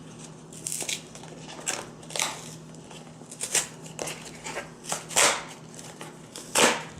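Cardboard mailing box being pried and torn open by hand: a string of short ripping and scraping sounds, the loudest just after five seconds and again shortly before the end, over a steady low hum.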